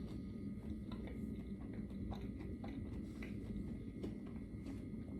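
A person chewing a mouthful of boneless fried chicken: faint, scattered mouth clicks over a steady low hum.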